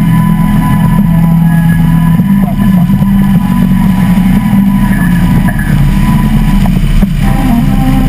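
Harley-Davidson V-twin motorcycle engine running steadily while riding, its pitch stepping up slightly about two seconds in.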